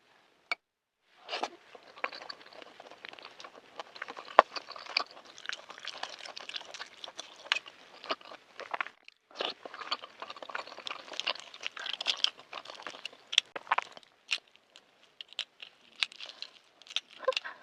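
Close, crackling crunches of a balut (fertilized duck egg) shell being cracked and picked apart, where the top has set hard. A brief pause about nine seconds in, then the crackling resumes.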